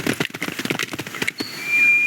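Animated-film sound effects: a quick run of light, pattering taps like small scurrying steps, then a steady high whistle-like tone from about a second and a half in.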